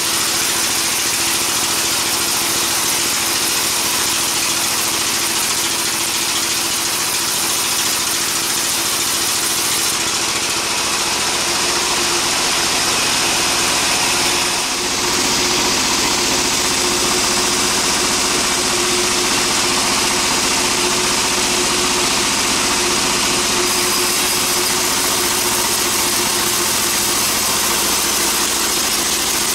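Engine-driven sawmill machinery running steadily, with a constant hum and a high hiss. The sound dips briefly about halfway through.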